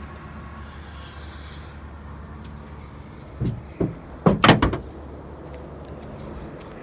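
Two short knocks, then a quick run of loud sharp bangs about four and a half seconds in, like a door or panel being shut, over a steady low hum.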